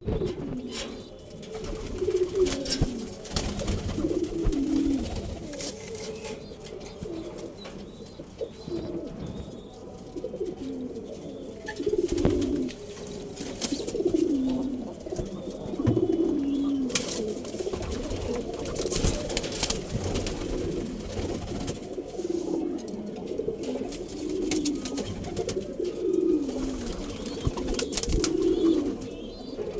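Domestic pigeons cooing over and over, low wavering coos following one another every second or two, with occasional sharp clicks.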